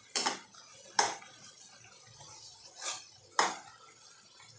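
A spoon stirring a wet dal-and-spice mixture in a kadhai, scraping and knocking against the pan about four times, loudest near the start and about a second in.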